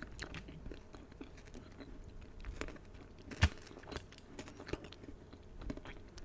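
Close-miked chewing of a chilled peanut and dark chocolate protein bar: soft crunching and wet mouth clicks, with one sharper click about three and a half seconds in.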